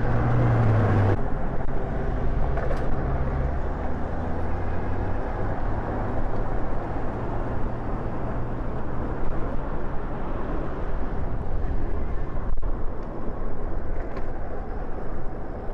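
Steady road and wind noise from riding a Super73 electric bike through city streets, a continuous low rumble, with a stronger low hum in the first second or so.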